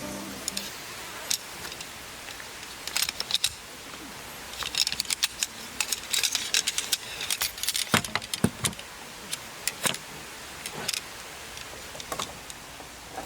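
Irregular clinking and rattling of small hard objects being handled, in scattered clusters, with a few sharper knocks about eight and ten seconds in.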